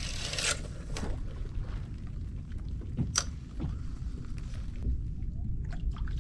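Spinning reel on a sea-fishing rod: a short hiss of line running off the spool right after a cast, then a single sharp click about three seconds in, with a few faint ticks near the end. Underneath is a steady low rumble of wind and water on the microphone.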